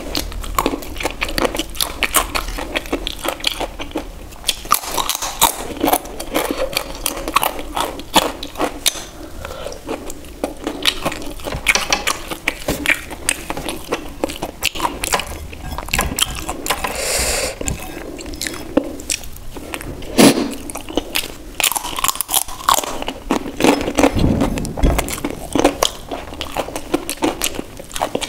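Close-miked eating: crunchy bites and chewing of roasted papad, then softer chewing of a piece of paneer in gravy. Irregular crackling crunches run on throughout.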